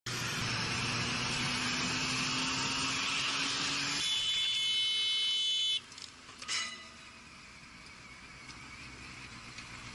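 Motorcycle riding in traffic: wind and engine noise, the engine note rising slowly as it gains speed. About four seconds in, a high steady tone sounds for nearly two seconds. The sound then drops much quieter, with one short sharp sound.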